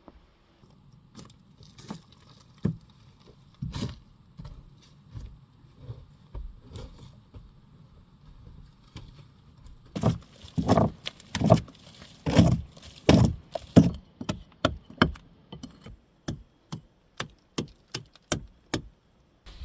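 A series of knocks and thuds: scattered soft knocks at first, then a run of louder, heavier strikes in the middle, then sharp knocks evenly spaced at about two a second near the end.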